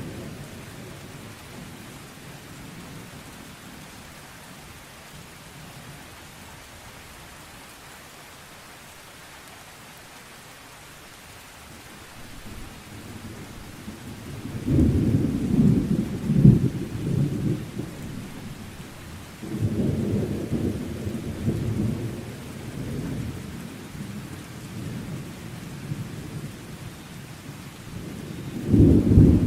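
Steady rain with rolling thunder: a low rumble starts about halfway through, another comes a few seconds later, and a louder one builds near the end.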